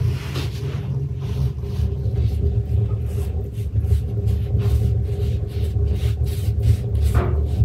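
A steady low rumble, with soft repeated strokes of a pastry brush spreading fat over rolled-out dough on a wooden board.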